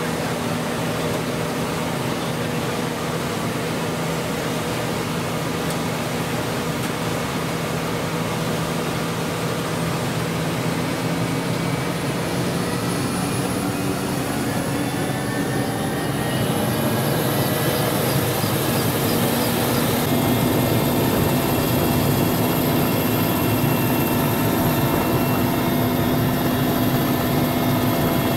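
Military helicopter's turbine engines and rotor running, heard from the open cabin door; the turbine whine rises in pitch partway through and the sound grows louder as the helicopter lifts off.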